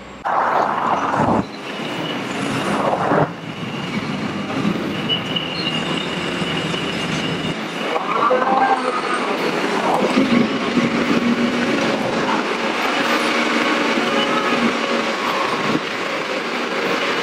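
Truck-mounted crane's diesel engine and hydraulics running steadily under load, with steady whining tones over the engine noise. The sound comes in abruptly just after the start.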